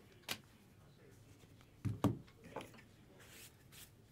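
Tabletop handling noise: a sharp click about a third of a second in, then a pair of knocks, the loudest sounds, about two seconds in, with a faint softer sound just after.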